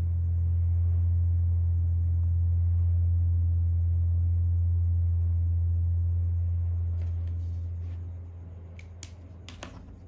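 A loud, steady low hum that fades away over the last two seconds. Near the end come a few light clicks and taps as the pen and sketchbook are handled.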